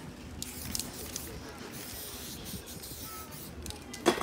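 Aerosol spray-paint can giving a few short hisses, with one sharp knock near the end.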